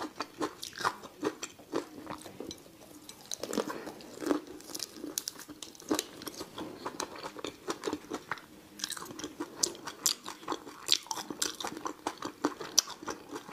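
A person chewing spicy raw prawns, with many small, irregular crunches and crackles throughout.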